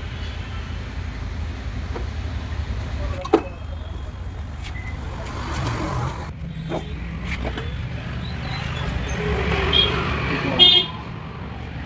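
Steel manual-gearbox parts knocking and clinking as they are handled and fitted, with a sharp clink about three seconds in and a louder, ringing metallic clink near the end. A steady low hum runs underneath.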